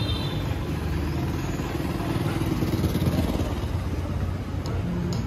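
Busy street traffic with engines running at a steady level.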